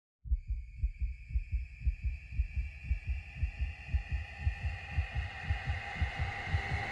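Heartbeat sound effect: steady, evenly repeating low thumps, with a thin high drone that swells toward the end.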